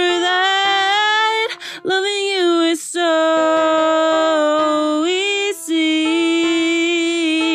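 Song: a high singing voice holds long, drawn-out notes that bend in pitch, breaking off briefly every second or two, over a steady sustained backing.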